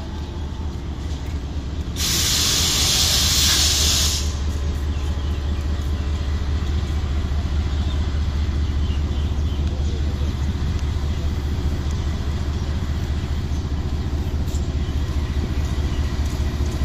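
Diesel locomotive engine running with a steady low drone as the train rolls slowly past. About two seconds in, a loud hiss of released air lasts roughly two seconds.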